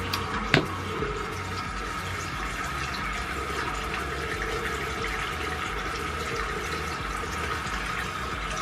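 Bathroom sink tap running in a steady rush of water, with a faint steady tone in it and a small knock about half a second in.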